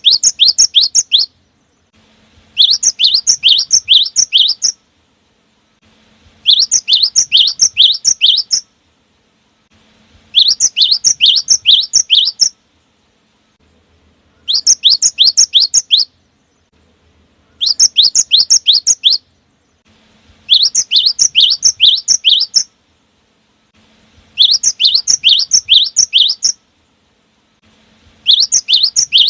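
Cinereous tit (gelatik batu) song: repeated phrases of about six quick, high two-part whistled notes, each phrase lasting about two seconds and followed by a pause of similar length. It is a regular, looped lure recording used to provoke caged birds into singing.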